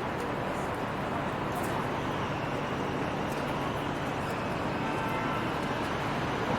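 City street ambience: a steady wash of traffic noise with indistinct voices of people around.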